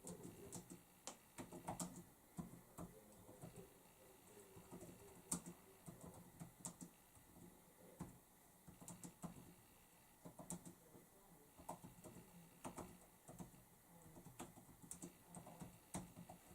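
Faint typing on a computer keyboard: irregular runs of keystroke clicks broken by short pauses.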